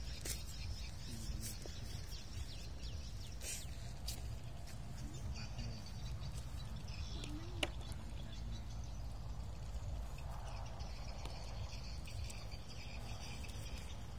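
Outdoor lakeside ambience: a steady low rumble with faint bird calls over it, and one sharp click about seven and a half seconds in.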